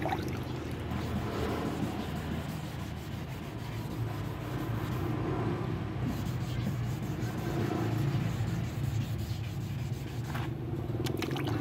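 Sandpaper on a hand sanding block rubbing back and forth over a car's painted body panel during body-repair prep, over a steady low hum.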